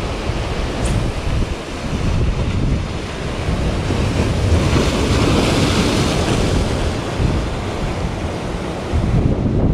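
Sea waves breaking and washing, with wind buffeting the microphone; a wave surges up louder about four to seven seconds in.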